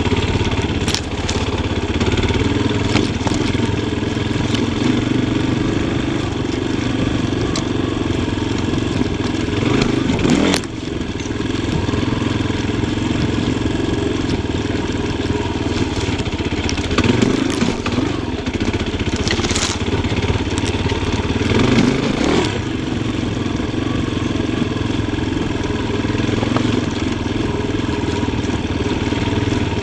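Yamaha Tricker XG250's single-cylinder four-stroke engine running under varying throttle, revving up briefly several times, with a few sharp knocks and clatter.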